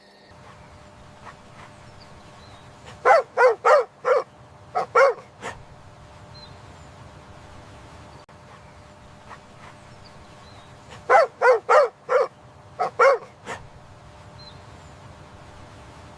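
A dog barking in two bouts of quick barks, about four and then three, with the same pattern repeated about eight seconds later.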